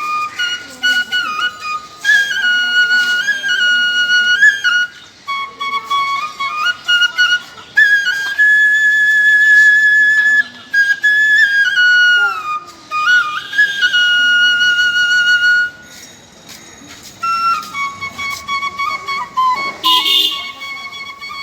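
Solo bamboo flute melody. Held notes move step by step, with slides between pitches, and there is a short pause about two-thirds of the way through.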